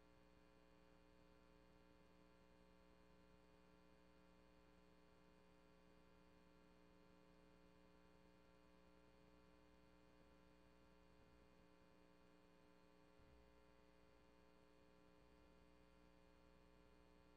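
Near silence: only a faint, steady electrical hum made of several fixed tones. This is the recording's noise floor; none of the meeting's audio was captured.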